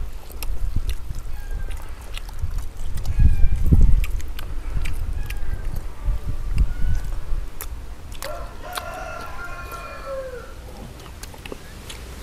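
A rooster crows once, a long call from about eight seconds in that falls in pitch at its end. Before that come scattered clicks and a burst of low thumping about three seconds in.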